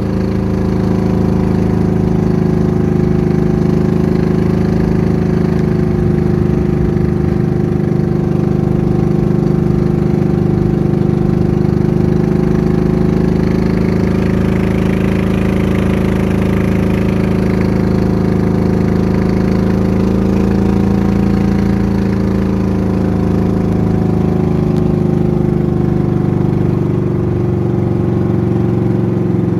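Small fishing boat's engine running steadily under way, a constant even drone.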